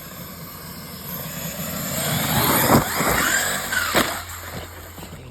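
A vehicle drives up close and revs, its pitch rising and falling, with two sharp knocks about three and four seconds in.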